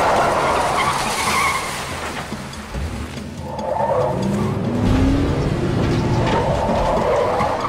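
Cars skidding and sliding across a dirt field, their engines running hard, with tyre squeal; an engine revs up about four to five seconds in.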